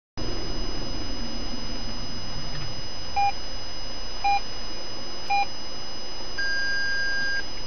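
Three short electronic beeps about a second apart, then one longer, higher beep lasting about a second, over a steady in-car hiss.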